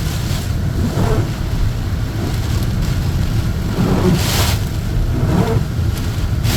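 Truck driving through a storm, heard inside the cabin: a steady road and engine rumble under rushing wind and rain noise that surges every second or so.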